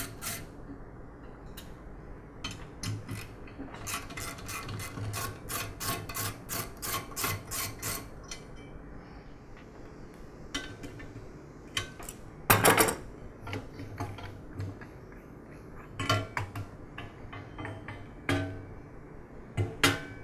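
A ratchet socket wrench clicking in quick even runs as the nuts holding an air compressor's regulator manifold are undone, then several louder metal knocks and clanks later on as the manifold is worked free of the compressor's steel frame.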